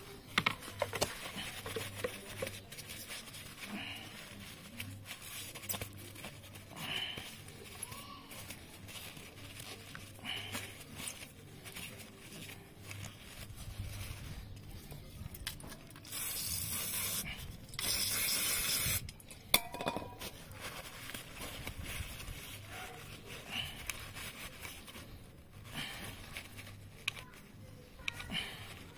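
Paper towel rubbing and scraping inside a car's throttle body, with small clicks and handling noises. About two-thirds of the way through come two bursts of aerosol brake-cleaner spray, each about a second long, hissing.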